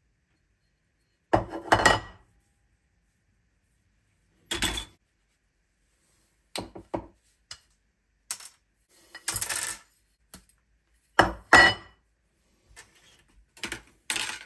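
Oil pump casings, rotors and small parts from a BMW S38 engine clinking and clunking against each other and the workbench as the pumps are taken apart. There are several separate metal knocks and rattles a second or more apart, the loudest pair a little past the middle.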